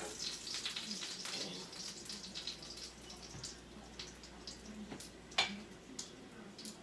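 Hot oil sizzling and crackling in a frying pan of chicken strips, with scattered small pops and one sharp clack about five seconds in.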